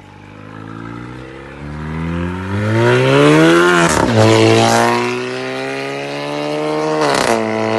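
Volkswagen Golf 1.4 TSI's turbocharged four-cylinder petrol engine with downpipe and Varex valved pop-bang exhaust, accelerating hard: the revs climb steadily for about four seconds, then drop sharply with a short crackle. The engine pulls steadily, then climbs briefly again and drops with more crackle near the end.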